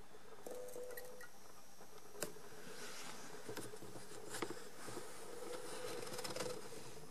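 Faint hum with a few light clicks and soft crackling from a fixture of four Osram 8 W T5 fluorescent tubes as they start up and light.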